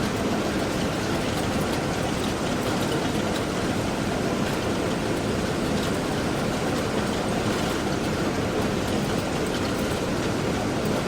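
Postal automatic letter sorting machine running: a steady mechanical rattle and whir with faint scattered clicks.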